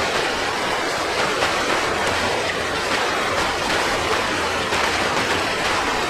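Steady rush of flowing floodwater, an even hiss with a few faint clicks and splashes in it.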